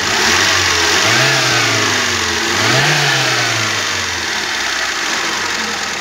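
Fiat Uno's 1.0 four-cylinder petrol engine, with a freshly cleaned and adjusted TLDF carburettor, is revved twice. Each rev rises and falls back, and the engine then settles to a steady idle. A small valve in the cylinder head is making a slight noise, which the mechanic calls nothing serious.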